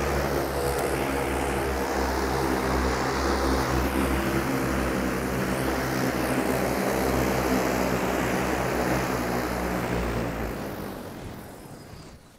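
EHang 184 passenger drone's eight electric rotors running with a steady droning hum as it hovers low and sets down, then spinning down and fading out in the last two seconds after touchdown.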